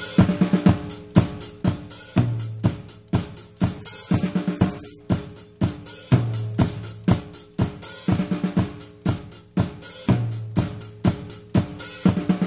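Drum kit playing a steady groove, with snare, kick and hi-hat hits about twice a second over sustained bass notes. The pattern repeats about every four seconds, like a looped music example.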